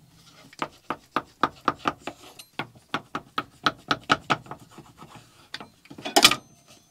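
Kitchen knife sawing through risen pizza dough on a wooden cutting board: a run of short, even strokes, about three or four a second, as a piece of dough is cut off. A louder knock near the end.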